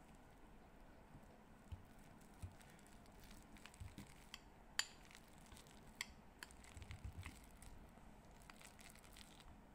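Near silence broken by faint, scattered clicks and taps of a stainless steel potato masher on a glass bowl as peeled bananas are mashed.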